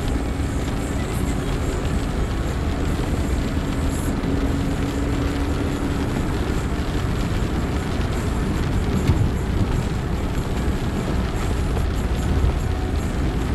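Steady rumble and hiss of a car driving on a rain-wet road, heard from inside the cabin with the windscreen wipers running.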